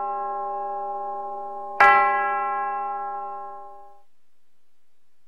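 A bell ringing on from a strike just before, struck again about two seconds in, its ring slowly dying away by about four seconds in.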